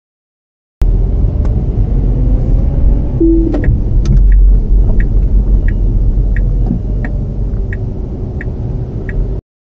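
Heavy low road rumble heard inside a Tesla's cabin while driving in city traffic. In the second half a light tick repeats about every 0.7 s. The sound cuts in about a second in and stops suddenly near the end.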